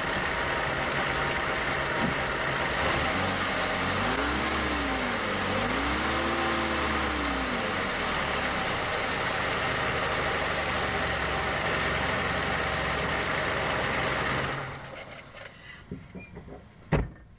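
Chevy Cavalier 2.2-litre four-cylinder engine running, revved up and back down twice early on. That is the rev range where the owner hears a ticking from low in the engine, which he thinks could be a slack timing chain. The engine sound falls away about fifteen seconds in, and a single sharp click comes near the end.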